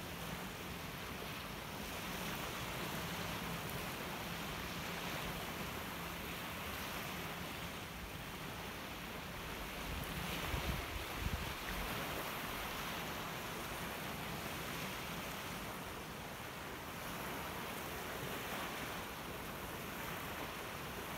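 Small waves washing onto a pebble beach, with wind buffeting the microphone. A few stronger low gusts come about halfway through.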